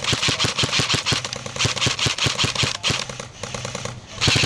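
Airsoft guns firing rapid full-auto bursts, a steady stream of sharp clacking shots. It eases briefly near the end, then a loud new burst starts.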